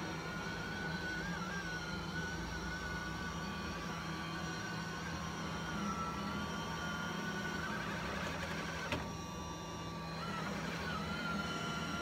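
LG Hom-Bot Square robot vacuum running on carpet: a steady motor hum under a wavering whine. About nine seconds in there is a click, and the whine cuts out for a second or so before coming back.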